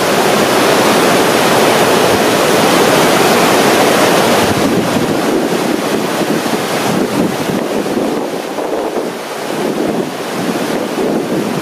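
Whitewater rapids running through a river hole at about 60 cubic metres a second: a steady, loud rush of churning water.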